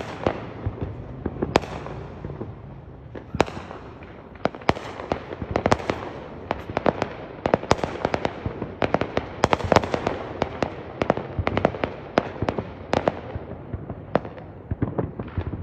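Neighbourhood Fourth of July fireworks going off: a few separate sharp bangs at first, then a dense run of rapid bangs and reports for most of the middle, thinning out near the end.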